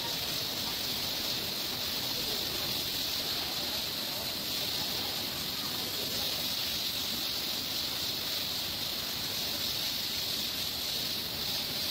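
High-pressure washer jet spraying water over a car, a steady hiss of spray that does not let up.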